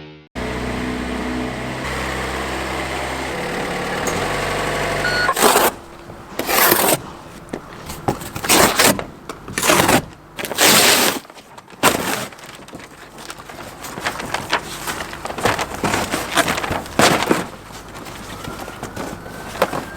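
Packaging being torn and pulled off a motorcycle's shipping crate: irregular loud ripping and scraping bursts from about five seconds in. A steady hum that shifts pitch in steps comes before them.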